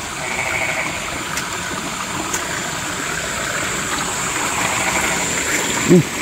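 Night rice-paddy ambience: a steady rushing like water running in a paddy ditch, with a continuous high, thin insect drone. A short vocal sound from a person comes near the end.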